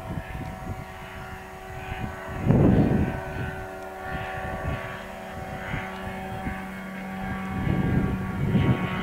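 Kolb ultralight airplane's engine and propeller running steadily as it flies low past. A loud rushing noise swells over it about two and a half seconds in and again near the end.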